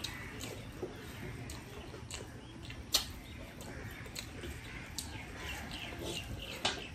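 Eating by hand from metal plates: fingers mixing rice and curry, with a few sharp clicks against the plates, the strongest about three seconds in. Small birds chirp in the background.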